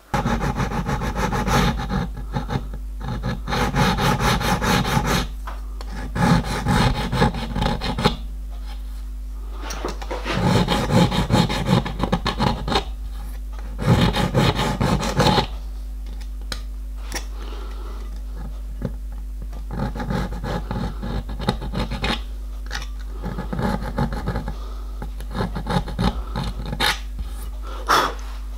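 Small hand file rasping along the edge of a steel bar clamped in a bench vise, in bouts of quick strokes a few seconds long with short pauses between, over a steady low hum.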